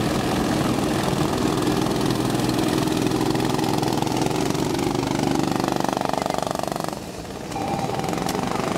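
Go-kart engines running as karts pass close by, with a puttering engine note that rises in pitch as a kart accelerates. The sound drops away briefly about seven seconds in, then the engine noise returns.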